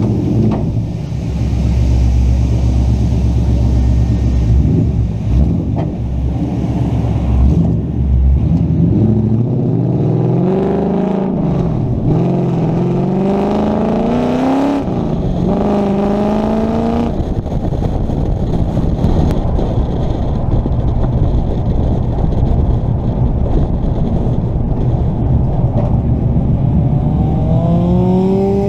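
Nissan 240SX engine pulling away and accelerating: the revs climb, drop sharply about twelve seconds in at a gear change, climb again and shift near fifteen seconds, then settle into a steady cruise, with revs rising again near the end. Wind rumbles on the outside-mounted microphone throughout.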